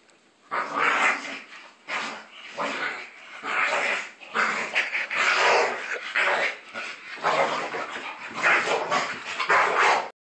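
Two dogs play-fighting, growling and barking in rapid, irregular bursts. The sound cuts off abruptly near the end.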